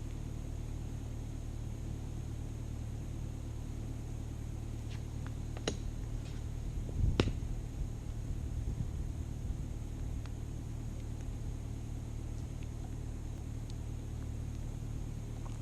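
Steady low engine-like rumble with a few short sharp knocks, the loudest about seven seconds in.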